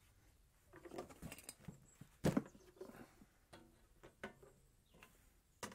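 Faint clicks and light knocks of the HITBOX HBM200 welder's plastic case being handled at its side-panel catch, opening the wire-feed compartment. The sharpest click comes a little over two seconds in, with another just before the end.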